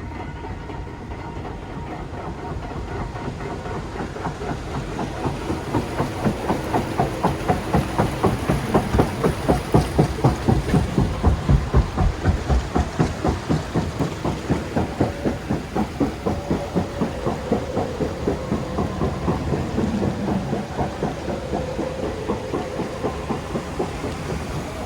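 Water-ride conveyor lift carrying a raft uphill, clacking rhythmically at about three beats a second, loudest around the middle.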